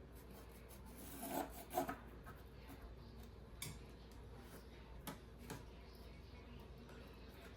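A small hand tool scraping and rubbing at the iPhone 11's opened frame, clearing leftover screen adhesive and debris. There is a short run of scrapes about a second in, then a few light clicks of the tool against the phone.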